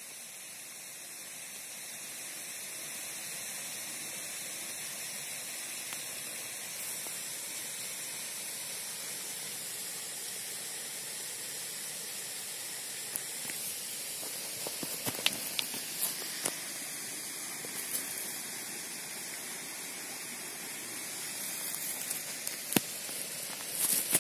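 Pot of water heating on an Esbit solid-fuel stove: a steady hiss, with scattered small ticks and clicks in the second half and a louder click near the end.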